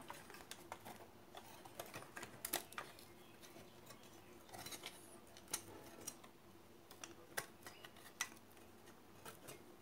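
Faint, scattered light clicks and taps of a CRT TV's circuit board and tuner being handled with a metal tool and brush, over a faint steady hum.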